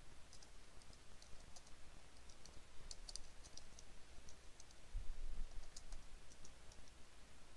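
Computer keyboard typing: irregular key clicks. A low bump about five seconds in, over a faint steady low hum.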